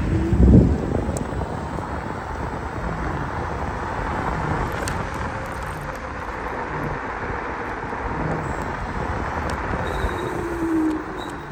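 Riding noise from a Dualtron Victor electric scooter: steady wind and tyre rush on asphalt, with a loud low thump about half a second in as the scooter hits a bump. Near the end there is a brief falling whine.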